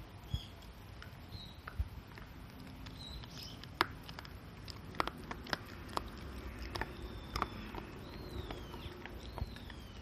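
Shiba Inu gnawing a hard chew treat held between its front paws: irregular sharp clicks and cracks of its teeth on the chew.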